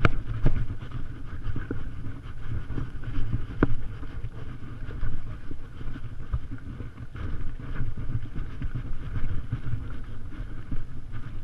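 Low rumbling wind noise and jostling on the microphone of a GoPro Hero 3 worn by a rider on a walking horse, with a few sharp clicks.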